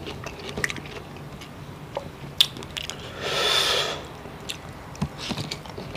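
Close-up chewing and wet mouth clicks of a man eating rice and chicken-innard adobo by hand. A breathy hiss lasts about a second just past the middle.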